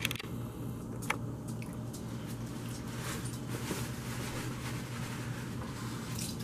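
Room background with a steady low hum, faint scattered handling ticks, and one sharp click about a second in.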